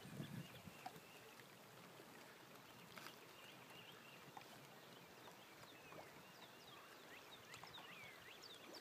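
Near silence: faint open-air lake ambience, with a scatter of faint high chirps from birds, short falling notes, in the second half.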